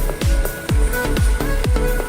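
Electronic dance music with a steady kick-drum beat, about two beats a second, and sustained synth notes.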